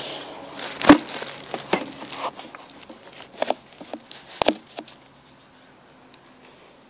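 Irregular clicks and knocks of metal hand tools and engine parts being handled while a crankshaft seal is worked into a small two-stroke bike engine. The loudest knock comes about a second in, and the sounds die away about five seconds in.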